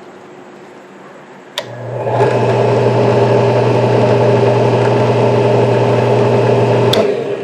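WEN 4208 8-inch benchtop drill press switched on with a click about a second and a half in; its motor spins up and runs steadily with a low hum for about five seconds, then is switched off with a second click and winds down near the end. It runs with a moderate noise, judged not that noisy.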